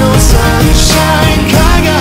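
Loud background rock music playing steadily.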